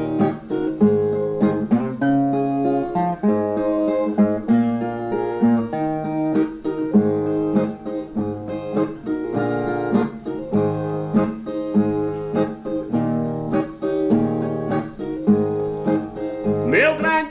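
Brazilian viola, a ten-string folk guitar, picking a steady instrumental melody of plucked notes as a song intro. A man's singing voice comes in near the end.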